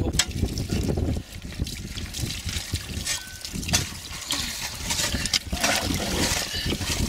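Water trickling and pouring from a plastic bottle into a young elephant's mouth as it drinks, with a few sharp clicks from handling the bottle.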